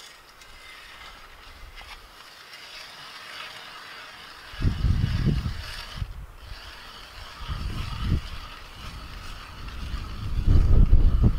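Ice auger boring a hole through thick lake ice, a steady grinding scrape, with heavy low rumbles coming in from about four and a half seconds in and again near the end.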